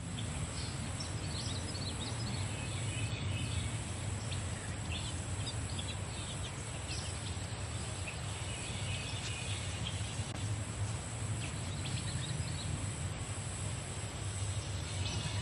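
Birds chirping in short high calls scattered through, over a steady low rumble and a constant high-pitched hiss.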